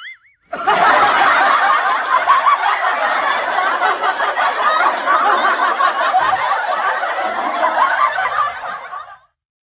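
Canned laughter sound effect: a crowd laughing steadily, cut off abruptly near the end. A brief warbling tone just before the laughter starts.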